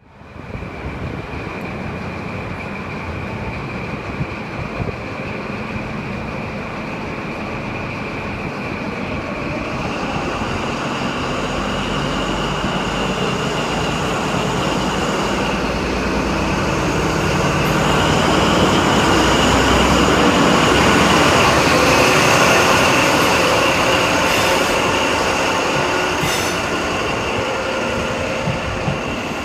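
East Midlands Trains HST (diesel High Speed Train) running at Leeds station. A steady high whine holds throughout while the train grows louder, peaking about three quarters of the way in, then easing.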